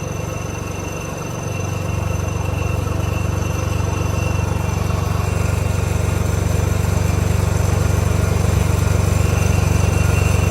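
An engine running steadily at low speed with a fast, even pulse, getting a little louder about two seconds in.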